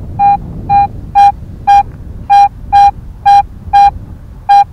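Garrett AT-series metal detector giving its target signal: a mid-pitched beep repeating about twice a second as the search coil is swung back and forth over a buried metal object, which reads about 71 on the detector.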